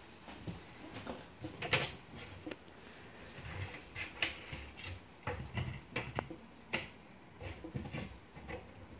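Knife clicking and tapping against a plate while cutting peeled cucumber, a run of irregular sharp clicks with the odd short clink.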